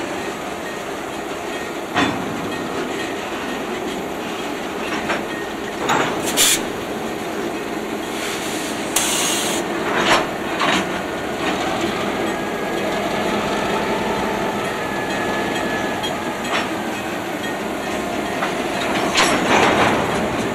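Diesel switching locomotives moving through a grade crossing: steady running noise with sharp knocks from the wheels every few seconds and two brief high hisses.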